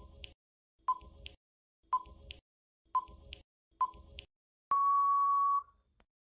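Countdown timer sound effect: five short beeps about a second apart, then one longer beep that marks the end of the count.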